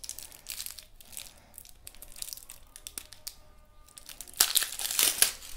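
Thin protective plastic film on a new fishing rod crinkling and tearing as it is cut and peeled off by hand. It comes in scattered short rustles, with a louder burst of crinkling about four and a half seconds in.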